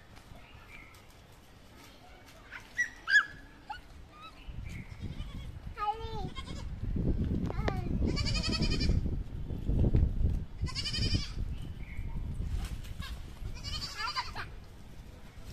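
Goat bleating three times in the second half, each a high, wavering call of about a second. Two sharp knocks come about three seconds in, and a low rumbling noise runs from about four seconds on.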